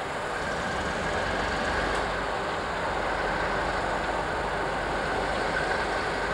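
Locomotive-hauled train moving slowly past: a steady rumble of the locomotive and rolling wheels, with a faint steady whine above it.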